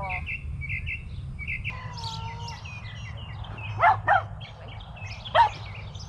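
Wild birds chirping and singing steadily in the background. A small dog barks sharply three times: two quick barks about four seconds in and one more about a second and a half later.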